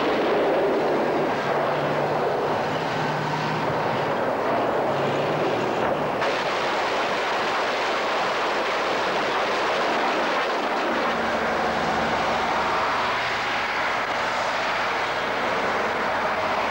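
Heavy military vehicle engines, tanks and army trucks, running in a steady loud din. The sound changes abruptly about six seconds in, and a deeper engine hum comes in near eleven seconds.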